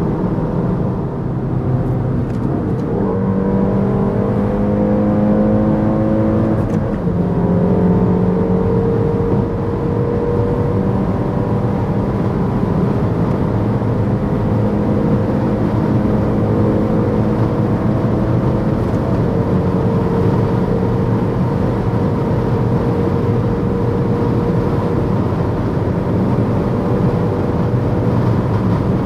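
Peugeot 308 GTi's turbocharged four-cylinder engine pulling hard with its pitch climbing, then dropping sharply about seven seconds in at a gear change. It climbs again and settles to a nearly steady drone at high cruising speed, over a constant rush of road and wind noise.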